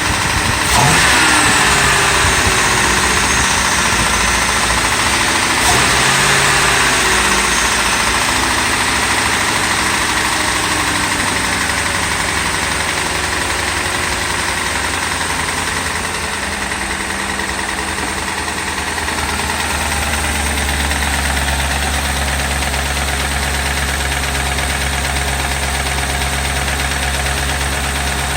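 2008 Ford Crown Victoria's 4.6-litre V8 engine, revved briefly about a second in and again about six seconds in, then idling with an engine knock. The knock is the sign of a worn-out engine, which the owner suspects was run low on oil.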